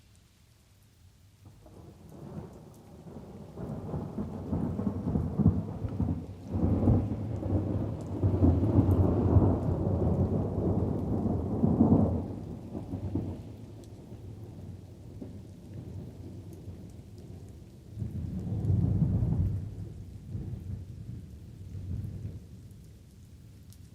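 Thunderstorm: a long rolling peal of thunder builds from about two seconds in, rumbles loudest in the middle and fades out, then a shorter rumble follows later and a fainter one near the end, over light rain.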